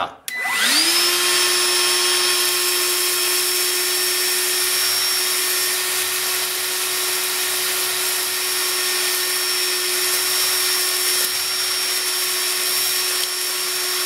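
Ryobi ONE+ P770 18-volt cordless wet/dry vac switched on about half a second in. Its motor spins up with a quick rising whine, then runs steadily with a rushing air noise as the wand sucks damp sand out of a bucket.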